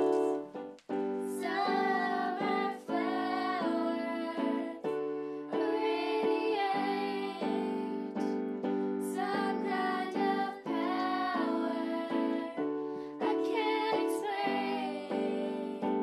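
Voices singing a pop-style song at a singing lesson, accompanied by chords held on an electronic keyboard. The singing comes in phrases of a few seconds with short breaks between, the chords changing under each phrase.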